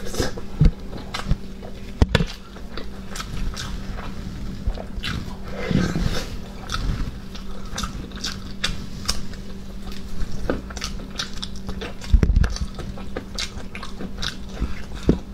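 Close-miked wet chewing, biting and lip smacks from eating a braised pig's trotter stewed very soft, with sticky tearing of the skin and meat. Two louder dull knocks come about two seconds in and again near twelve seconds.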